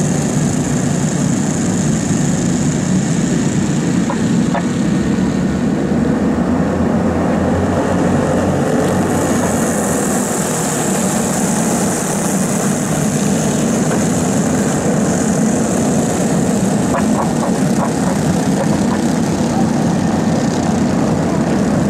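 Racing go-kart engines running on a dirt track, a loud, steady engine sound with no let-up.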